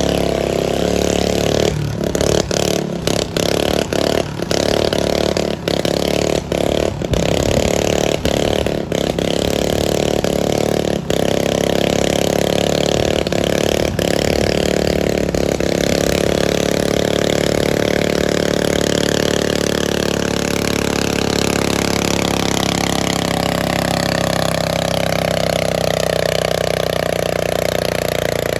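A garden pulling tractor's engine running hard at high revs, with several split-second dropouts in the first ten seconds. From about halfway on its pitch slowly falls as the engine loads down.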